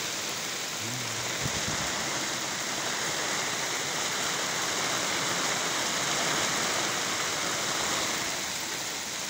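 Heavy rain pouring steadily onto flooded rice paddies, an even hiss.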